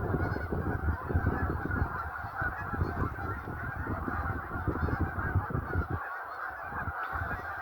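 A large flock of Canada geese honking all at once, many overlapping calls merging into a dense, continuous chorus.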